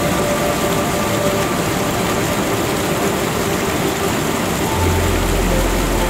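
Ambient music soundtrack: held synth tones that shift every second or two over a steady hiss like rushing water or rain, with a deep bass note coming in near the end.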